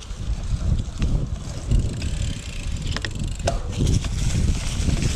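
Cyclocross bike being ridden, heard from a handlebar-mounted camera: wind rumbling on the microphone over the noise of the tyres rolling and the bike rattling. Two sharp clicks about half a second apart come around three seconds in.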